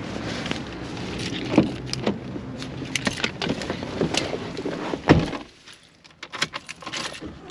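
Steady vehicle hum with clattering, clicks and knocks. A loud thump about five seconds in, after which the hum stops and only scattered clicks remain.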